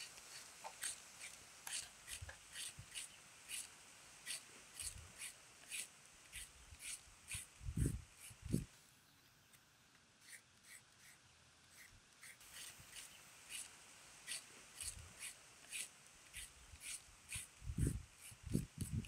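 Kitchen knife peeling the skin off a raw cassava root: short, crisp scraping strokes at about three a second, easing off for a few seconds midway. Two dull thumps about eight seconds in and again near the end.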